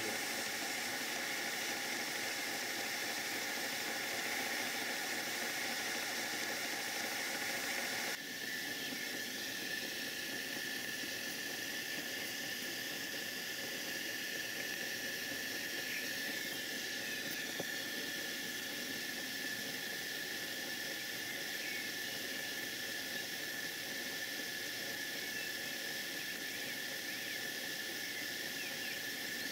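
Coal-fired 5-inch gauge GWR 14XX live-steam model locomotive in steam on a rolling road: a steady hiss with a high whistling tone, which changes abruptly about eight seconds in.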